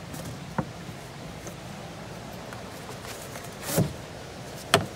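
Knocks and clicks of plywood panels being handled: a short click about half a second in, a louder knock a little before four seconds, and the sharpest, loudest knock near the end.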